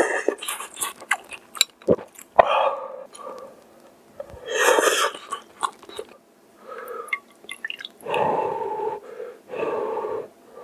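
Close-miked eating of spicy kimchi instant ramen: noodle slurps and wet chewing with sharp mouth clicks, then broth sipped from a spoon near the end.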